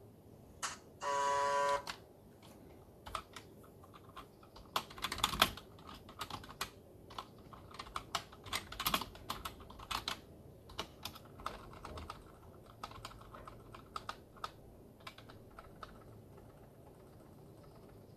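A brief steady buzzing tone about a second in, the number station's buzzer heard through a phone's FM radio, then irregular keystrokes of someone typing on a computer keyboard for about twelve seconds.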